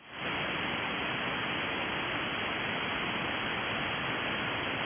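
Steady hiss of radio static from a receiver on an open, empty channel once the transmission has ended. It swells up within the first fraction of a second and then holds even.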